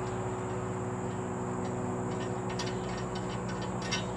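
Ratchet wrench clicking in short quick runs in the second half as bolts on a tree stand are tightened, over a steady low hum.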